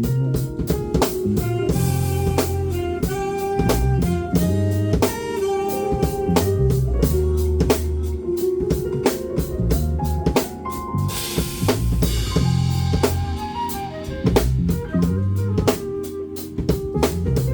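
Band music with a drum kit keeping a steady beat, bass drum and rimshots, guitar and bass under a melody line, with a bright cymbal wash about eleven seconds in.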